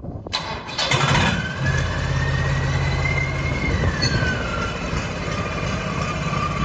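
Swaraj tractor's diesel engine being started: a whine that rises and then falls over the first few seconds as it cranks and catches, then the engine idling steadily.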